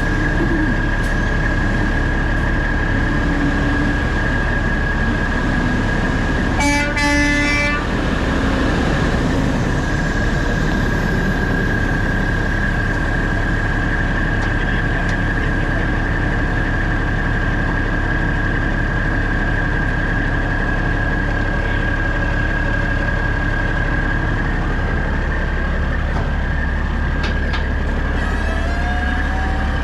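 Heavy diesel engine running steadily with a continuous high-pitched whine. About seven seconds in, a horn sounds once for just over a second.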